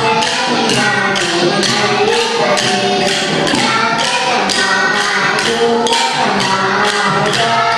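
Music for a kolkali stick dance: a melody over sharp clicks of wooden dance sticks struck together, about two a second in a steady rhythm.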